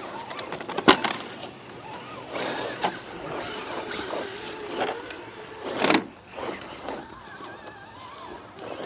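Electric drive motor and gears of a radio-controlled scale rock crawler whining, rising and falling in pitch as it climbs over rock. Two sharp clacks, about a second in and at about six seconds.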